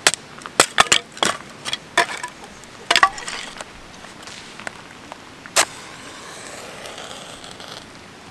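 Sharp wooden knocks and clacks from kindling being split with a wooden baton and stacked in a metal fire pit: several in quick succession, then one more a little past halfway. A soft steady hiss follows near the end.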